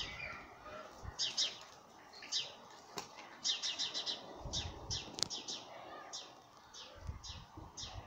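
Seagulls fighting: wings flapping in bursts, with short, high, falling calls repeated throughout, coming in a quick run of about five notes a few seconds in.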